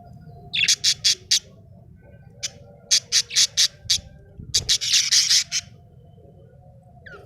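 Budgerigar chirping in three quick series of short, harsh calls, the last series, about four and a half seconds in, running together the longest.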